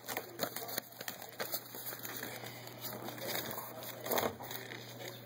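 A sheet of paper being folded and creased by hand: faint crinkling and rustling, with a louder rustle about four seconds in.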